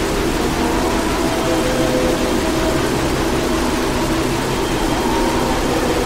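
Heavy metal song playing: a dense, steady wall of distorted sound with faint held notes beneath.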